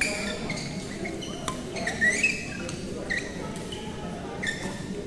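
Sneaker soles squeaking on badminton court flooring from several courts, many short high squeaks, the loudest a rising squeak about two seconds in, with a few sharp taps of rackets hitting shuttlecocks.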